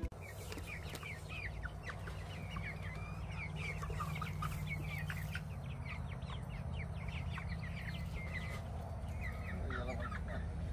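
A group of young pullets peeping and clucking as they eat from a hand: many short, high chirps with quick pitch slides, overlapping throughout.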